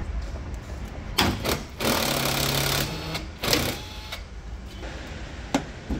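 Mitsubishi L200's plastic fender flare being pulled off the wheel arch: a sharp snap about a second in, about a second of rough scraping and rattling of plastic, another snap, then a few light clicks near the end.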